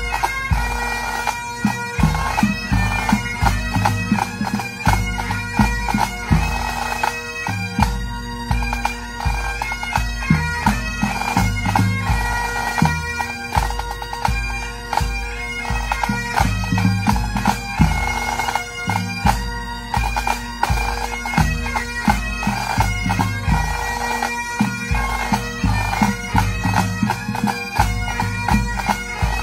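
Pipe band playing: Great Highland bagpipes sounding a melody over their steady drones, with snare drums and a bass drum keeping a steady beat.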